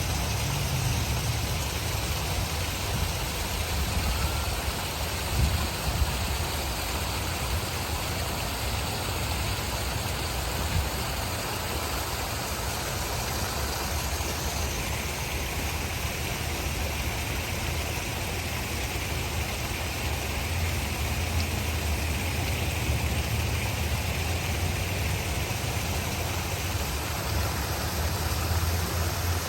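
Steady rush of running water, with a deep rumble underneath.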